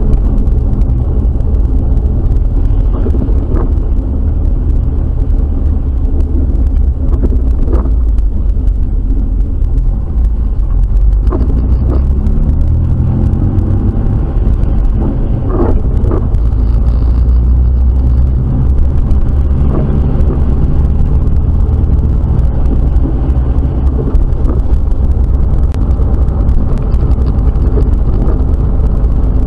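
Jeep Wrangler driving through town on wet pavement, heard from inside the cabin: a steady, loud low rumble of engine and road noise, with a few light knocks here and there.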